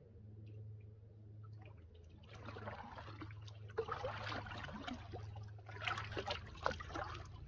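Canoe paddle strokes: the wooden blade dipping and pulling through calm water, with splashing and dripping that start about two seconds in and come in a few swells.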